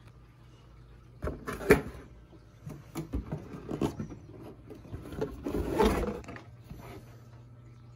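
Cardboard box and packaging being handled: a few sharp knocks and clatters, the loudest about two seconds in, then a longer rustling scrape around six seconds in.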